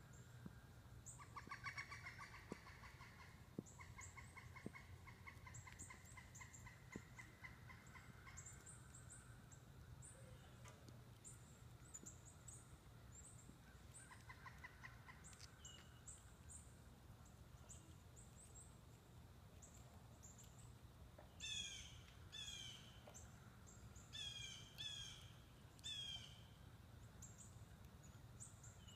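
Faint wild birds calling: many short high chirps, a long rapid trill through the first several seconds and again briefly near the middle, and a run of quick downward-slurred calls near the end.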